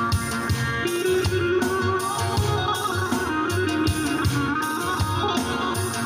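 Instrumental break by a Turkish wedding band: an amplified plucked-string instrument plays a fast melody over bass and drums, with no singing.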